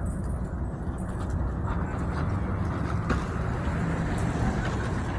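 Steady low rumble of vehicle noise, even throughout, with no distinct events.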